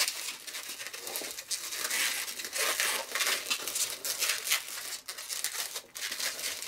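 Inflated latex 160 balloons rubbing against each other and against fingers as they are twisted and locked together by hand, an irregular stop-and-start rubbing noise.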